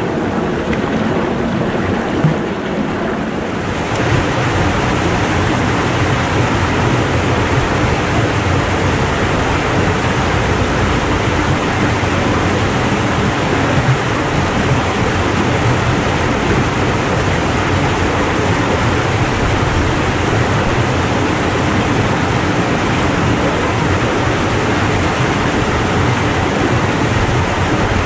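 River water rushing over rocks in a small cascade, close to the microphone, a steady loud rush that gets louder about four seconds in.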